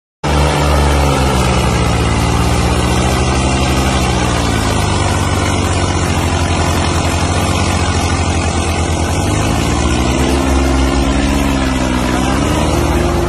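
Tractor diesel engine running under varying load, with a rapid steady firing beat. Its speed sags and recovers a couple of times, around the middle and again near the end.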